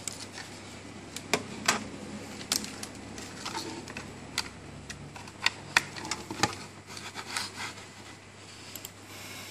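Irregular plastic clicks and knocks as cables and plugs are handled and pushed into the ports of an M8S Android TV box on a desk, over a steady low hum.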